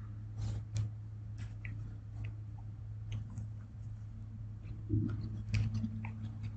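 Faint scattered clicks and small taps over a steady low hum.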